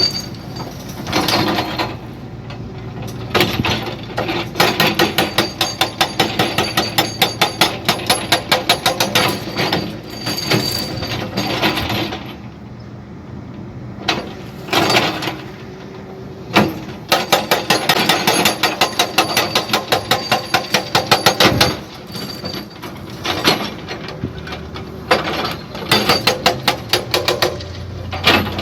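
A jackhammer breaking at a construction site, hammering in rapid strokes in bursts of several seconds with short pauses between. The two longest runs are in the first half and around the middle.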